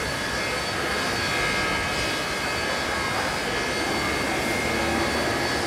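Steady drone of an electric train with several even, high whining tones, growing slightly louder near the end as a vintage F1 'Red Rattler' electric train rolls slowly in along the platform.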